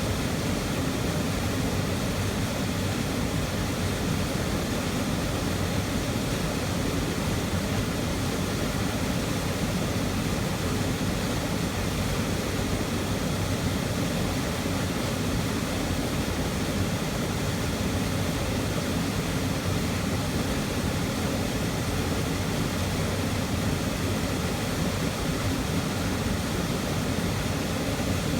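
Waterfall heard up close: a steady, loud rushing of falling water with a heavy low rumble and no break.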